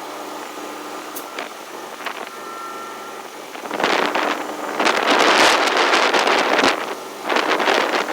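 An engine runs steadily. From about four seconds in, loud rushing noise comes and goes in surges over it.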